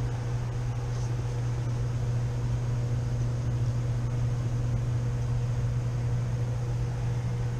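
Rooftop air-conditioning equipment running with a steady low mechanical hum and a faint steady tone above it.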